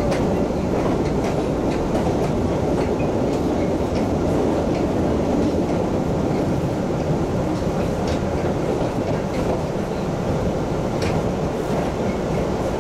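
MBTA Red Line subway car running at speed, heard from inside the car: a steady rumble with scattered clicks of the wheels over the rails.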